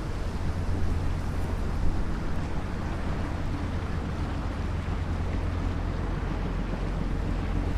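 Steady low engine drone of a river sand-carrying boat, with the hiss of wind over the microphone.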